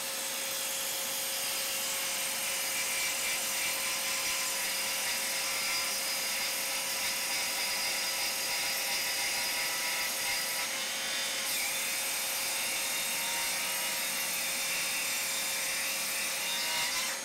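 Circular saw cutting through a sheet of MDF, its motor running steadily under load, with a shop vacuum hooked to the saw's dust port running throughout.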